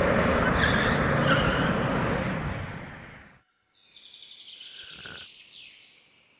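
Jet airliner landing, its engine noise a loud, even rush that fades out about three seconds in. After a short silence comes faint, high chirping.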